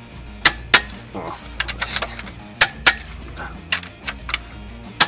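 Metal hand tools and parts clinking and knocking during engine assembly work: a string of sharp, irregular clicks and taps, some with a brief metallic ring, over a low steady hum.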